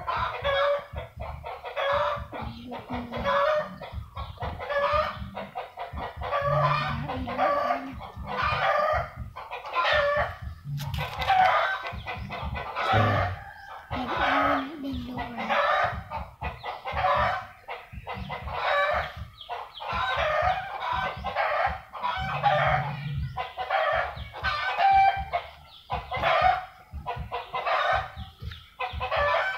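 A continuous run of short animal calls, about two a second, with a few lower, longer calls mixed in.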